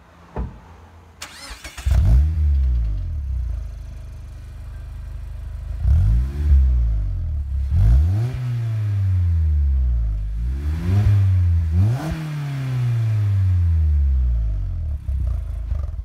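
Mazda MX-5 Miata's 2.0-litre four-cylinder engine heard at the exhaust tips. It starts about two seconds in with a brief flare, settles to idle, then is revved four times, each rev rising quickly and falling back slowly to idle.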